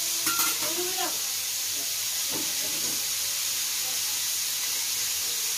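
Cubes of meat frying in oil in a wok, a steady sizzling hiss while the meat browns.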